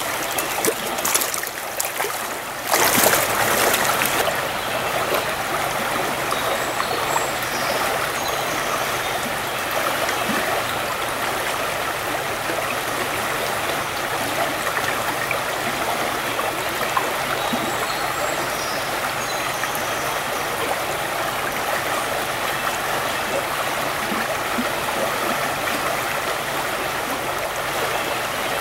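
Steady rushing of a river's current running high after rain, with a few brief knocks in the first two seconds and a louder surge of water noise about three seconds in.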